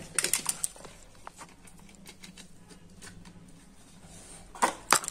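Small plastic clicks and taps as a flour-mill control circuit board and its plastic housing are handled with a screwdriver: a quick flurry of clicks at the start, scattered light ticks, then a louder cluster of sharp clicks shortly before the end.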